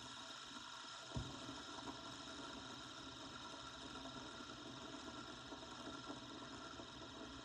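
A small spinning toy whirring steadily on a tabletop, with a single knock about a second in.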